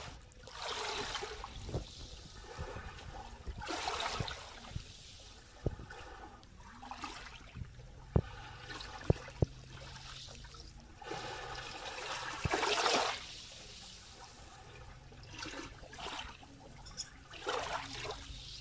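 Small, gentle waves lapping in over a shallow sandy, pebbly shore, each wash swelling and draining away every few seconds. A few sharp clicks stand out near the middle.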